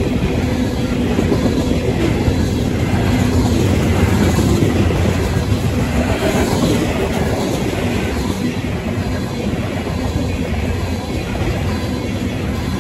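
Freight train of tank cars and covered hopper cars rolling past close by: a loud, steady rumble of steel wheels on the rails.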